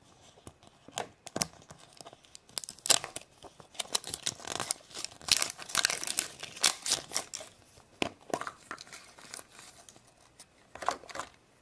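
Printed wrapper being torn and peeled off a plastic surprise egg. It crinkles and crackles in irregular bursts, with a short lull near the end.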